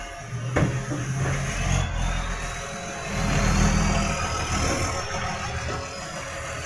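Garbage truck engine running loud through a large exhaust leak, its rumble swelling louder about three seconds in. A sharp knock comes a little after the start, and a faint high whine rises and falls.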